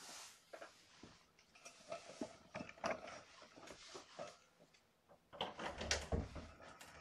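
Scattered light knocks, clicks and rustles of movement in a room, with a burst of louder knocks and a dull thump about five and a half seconds in.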